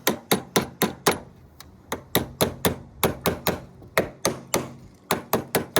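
Hammer tapping a new battery cable terminal clamp down onto the battery post: a quick series of sharp taps, about four a second, in several runs with brief pauses between them.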